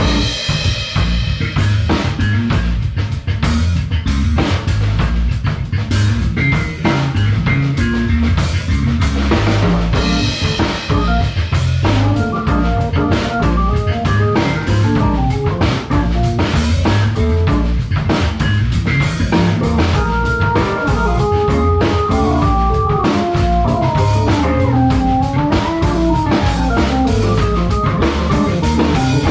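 Small instrumental fusion band playing live in a room: drum kit, hollow-body electric guitar, electric bass and keyboard together. A winding melodic lead line rises and falls over the steady drums and bass through the second half.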